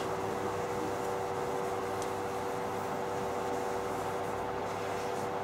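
Steady room hum with several held tones, even in level throughout.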